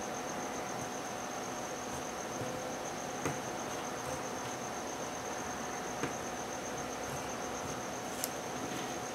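A steady, high-pitched insect trill over an even hiss, with three faint ticks along the way.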